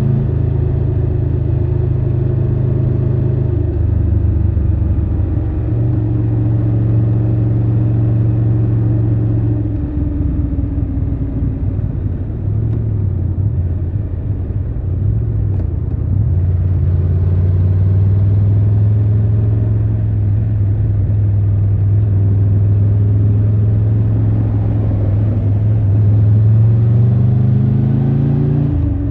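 Triumph Tiger 1200 Rally Pro's inline three-cylinder engine heard from the rider's seat while riding, its note rising and falling with throttle and gear changes. It turns rougher and uneven for a few seconds in the middle, then holds a steady cruising note and climbs again near the end.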